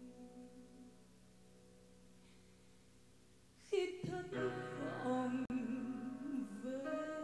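Live ballad: a female voice and a grand piano. For the first few seconds soft sustained notes fade away. About three and a half seconds in, the voice and piano come in loudly with a swelling, wavering sung line, and a higher note is held near the end.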